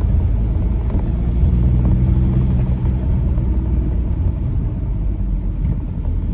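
Kia Carnival minivan driving along a winding road: steady engine drone and road rumble, with the engine's hum holding a steady pitch through the middle.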